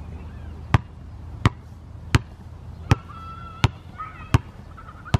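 Basketball dribbled on a concrete path: seven sharp, even bounces, a little under a second apart.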